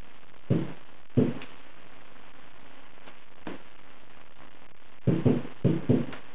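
Short, sharp knocks and clicks from the stud-welder dent-repair tools being handled. There are two close together near the start, a single one in the middle, and four in quick succession near the end.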